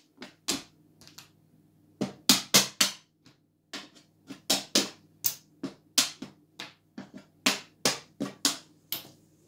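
Wooden draughts pieces clacking on a wooden board: about twenty sharp clicks in quick clusters as a series of moves and captures is played out.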